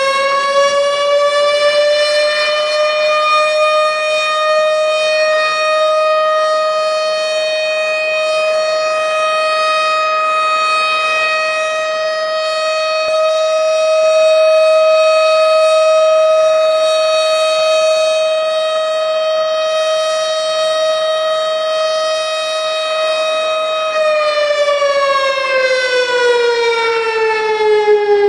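Ramadan fast-breaking (iftar) siren, signalling the time to break the fast, in one long wail. It rises a little over the first few seconds, holds a single steady pitch for about twenty seconds, then winds down in pitch near the end.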